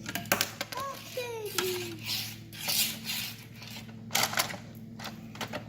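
Small plastic toy-set pieces clicking, knocking and rustling as they are handled, with sharp clicks just after the start and around four seconds in. A short gliding vocal sound, likely from a child, comes about a second in.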